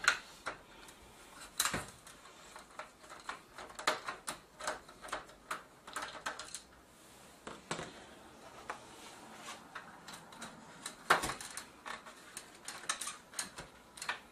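Small scattered clicks and light scrapes of a screwdriver backing screws out of the metal frame of an LCD backlight assembly, with a sharper click about two seconds in and another about eleven seconds in.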